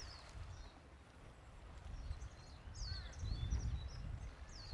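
Small birds chirping: short, quick, falling high calls, bunched together near the middle and end, over an uneven low rumble.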